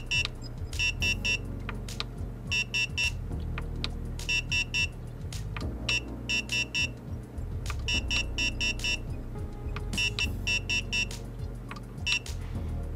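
Akasa AllN1 fan controller panel sounding its caution alarm: bursts of three or four short high beeps about every two seconds, over a steady low hum, stopping near the end. The alarm is tripped by a fan reading 480 rpm, below the 500 rpm minimum.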